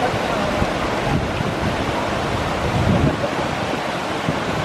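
Steady rush of the Tahquamenon River's fast water, running high and strong, with wind buffeting the microphone in low rumbles.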